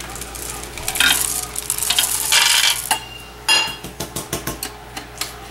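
Chocolate chips rattling as they are poured from a metal measuring cup through the plastic pouring shield into a KitchenAid stand mixer bowl of cookie dough. This is followed by a knock and a quick run of short taps near the end.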